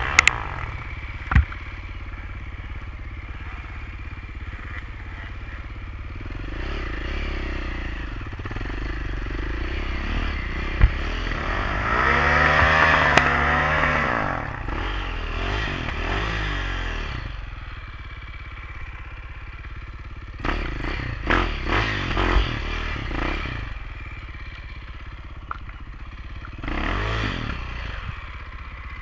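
KTM trail bike engine running and revving up and down over rough ground, with the revs swelling loudest about halfway through. Sharp knocks and clatter from the bike are scattered through it.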